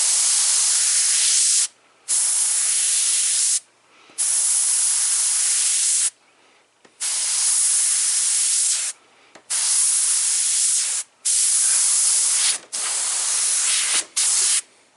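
Airbrush spraying white paint in about eight hissing bursts, each a second or two long, that start and stop sharply with short gaps between: the trigger pulled and released for each tapered stroke.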